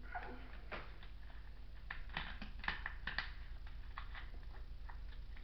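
Someone drinking water from a bottle: faint swallows and small mouth and lip clicks, busiest in the middle, over a steady low hum.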